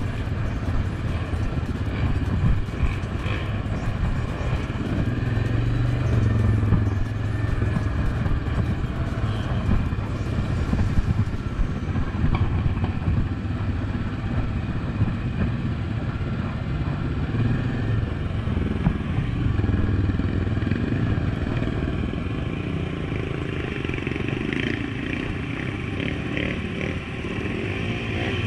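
Suzuki KingQuad 750 ATV's single-cylinder engine running steadily under throttle while riding, swelling and easing a little as the throttle changes.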